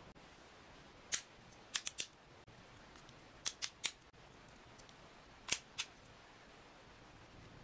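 Sharp plastic clicks and snaps as a DJI Osmo Action 3 action camera in its frame is handled and its magnetic quick-release mount fitted, about nine clicks coming in small groups of one to three.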